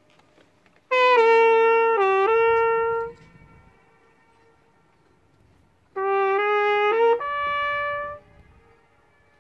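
Trumpet playing two short phrases of a few held notes each, about two seconds long, the second starting some five seconds after the first. Faint echoes of the notes come back off the surrounding cliff walls after each phrase.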